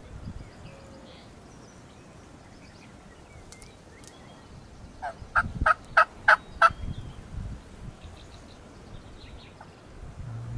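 A quick series of about six turkey yelps on a turkey call, evenly spaced over under two seconds, starting about five seconds in. It is calling to a gobbler that seems to be coming in.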